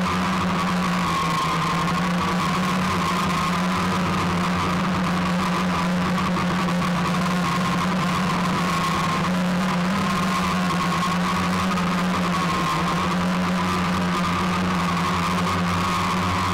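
Small drone's electric motors and propellers whining steadily, heard close up through its own onboard camera, with the pitch wavering slightly as it manoeuvres.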